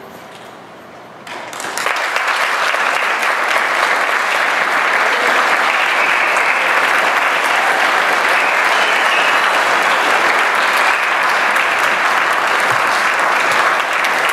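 Audience applause in an auditorium, breaking out about a second in after a brief hush and then going on steadily as a dense clapping.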